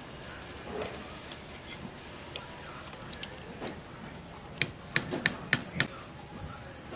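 A quick run of five sharp clicks, about four a second, a little past the middle, over scattered fainter ticks and a steady high thin whine.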